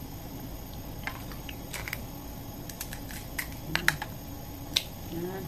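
Irregular small clicks and cracks of cooked crab being picked apart by hand and eaten: bits of shell snapping and the wet mouth sounds of chewing.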